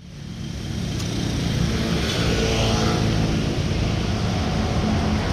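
A motor vehicle running, engine drone mixed with road or wind noise, fading in over the first second and then holding steady.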